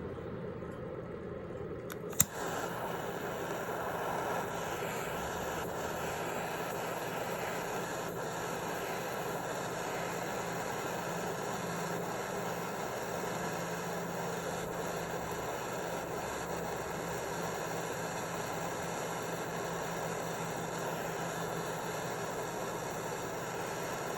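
Soldering torch lit with a sharp click about two seconds in, then the flame running with a steady hiss as it heats silver jump rings.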